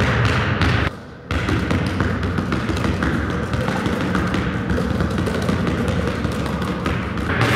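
Background music, with a basketball being dribbled hard and fast on a hardwood floor. The sound drops out briefly about a second in.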